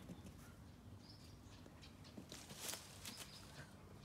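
Near silence: faint outdoor ambience with a few soft scuffs and rustles and a short, faint high chirp about a second in.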